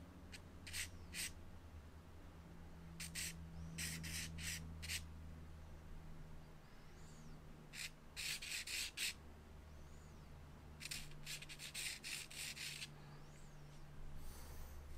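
Soft charcoal stick scratching across drawing paper in short, light strokes, singly and in quick clusters with pauses between, as a loose outline is sketched in. A steady low hum sits underneath.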